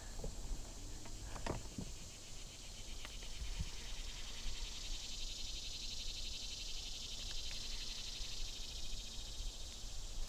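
A steady, high-pitched insect chorus with a fast, even pulse, growing louder through the middle. A few soft knocks sound in the first few seconds.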